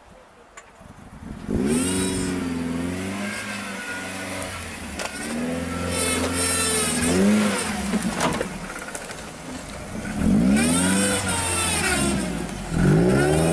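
Lifted Suzuki Jimny's engine revving under load on a steep off-road climb, starting about a second and a half in. Its pitch rises and falls in repeated surges as the throttle is worked.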